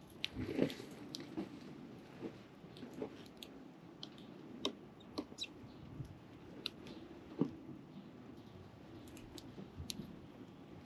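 Sparrow chicks pecking and hopping about at a feeding spot: scattered, irregular soft taps and clicks, about one or two a second, with no calling.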